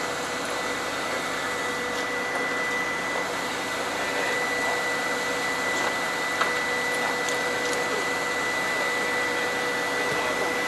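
Steady drone of a fishing boat's machinery with a constant high whine running through it, over sea water washing along the hull.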